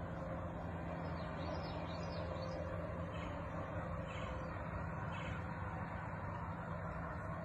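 Steady outdoor background noise with a low hum, and a few faint high bird chirps about one to five seconds in.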